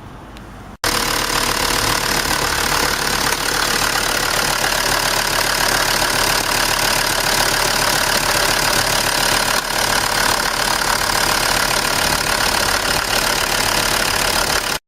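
2006 Land Rover Defender's Td5 five-cylinder diesel engine running steadily at idle, now that it starts after the fuel filter fault was cleared. It comes in suddenly about a second in and cuts off at the end.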